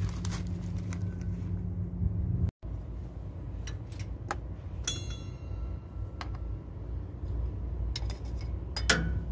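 Small metallic clicks and clinks of a truck accelerator cable's fittings being handled and fitted to the throttle linkage, with one ringing clink about five seconds in, over a low steady rumble.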